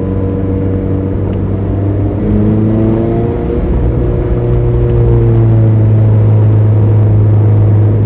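Mazda ND Roadster's four-cylinder engine pulling under load while driving, its note shifting pitch a couple of times as revs change. It grows louder about five seconds in.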